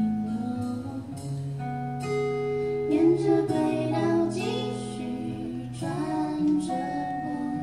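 A woman singing a slow melody to acoustic guitar chords in a live performance.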